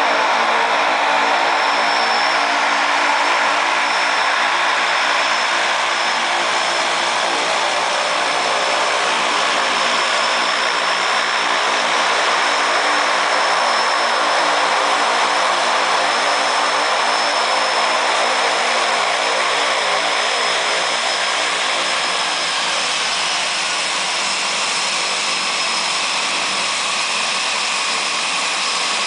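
De Havilland Canada DHC-6 Twin Otter's two PT6A turboprop engines running at taxi power, a steady high turbine whine over the propeller noise as the aircraft taxis close by on sand.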